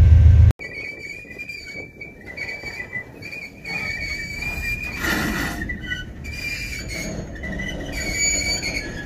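Freight train boxcars rolling past, their wheels squealing against the rail in high, wavering tones over a faint rumble. A loud low rumble cuts off abruptly about half a second in.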